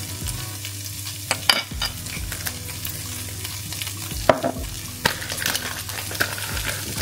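Chickpeas sizzling as they fry in oil in a non-stick pan, a steady hiss. A few sharp knocks and scrapes come about a second and a half in and again around four to five seconds in.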